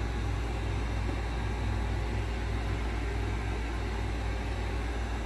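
Heat gun's blower running steadily with a low hum and rushing air, warming the glued edge of an iMac screen to loosen the adhesive.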